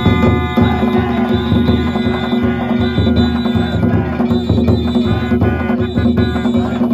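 Danjiri festival music: taiko drums beaten with ringing hand gongs (kane) played over them, loud and continuous.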